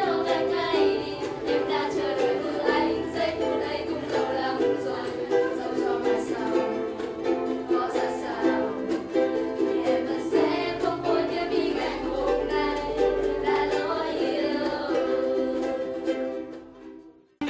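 Ukulele playing a tune, fading out near the end.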